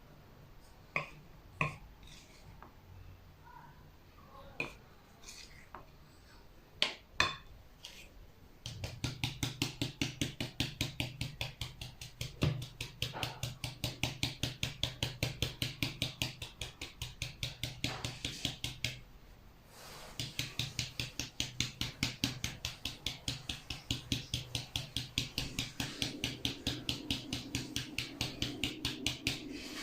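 A few scattered clicks and knocks of kitchen utensils, then a batter being mixed in a bowl with fast, even strokes, about five a second, over a low hum. The mixing pauses briefly about two-thirds of the way through, then carries on.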